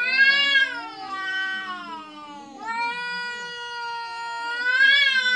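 Cat yowling in long, drawn-out warning calls, two of them back to back, the second rising in pitch near the end. This is a defensive standoff between a mother cat and a tomcat.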